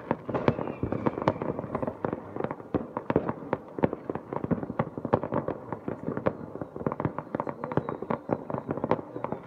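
Fireworks and firecrackers going off in many places at once: a dense, unbroken barrage of sharp bangs and pops, several a second.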